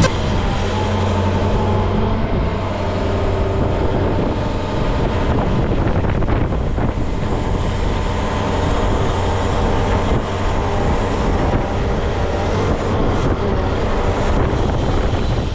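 Volvo EWR150E wheeled excavator's diesel engine running steadily with a constant low hum.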